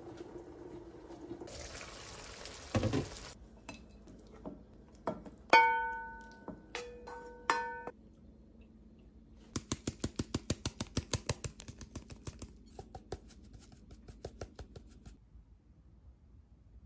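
Kitchen sounds of serving a simmering stew: a steady hum from the covered pan, then a burst of hiss about two seconds in, followed by a metal serving spoon clinking against a ceramic bowl with a bright ringing. In the middle comes a fast run of sharp ticks, about six a second, that fades out.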